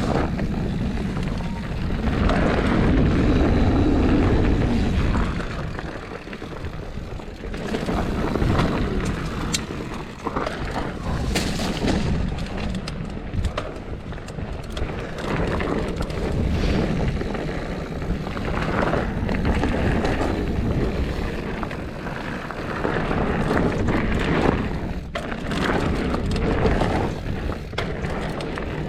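Mountain bike descending a dirt trail at speed: wind rushing over the microphone and knobby tyres rolling and skidding on dirt, with a few sharp clicks and rattles from the bike over bumps.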